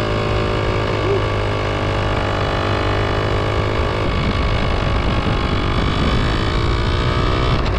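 Motorbike engine running steadily as the bike is ridden, its pitch holding fairly even.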